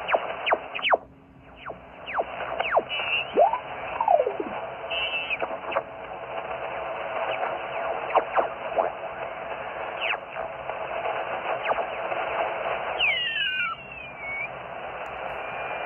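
Shortwave receiver tuned across a band: steady static hiss, narrowed like a single-sideband receiver's audio, crossed by many short whistles sliding down or up in pitch as carriers and stations heterodyne past. It dips briefly quieter about a second in.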